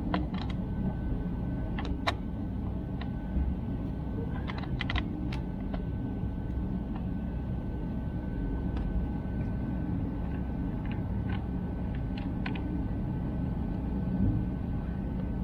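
Scattered light clicks and taps of a screwdriver on small screws and plastic trim, over a steady low background rumble. A faint steady high tone comes in about four seconds in.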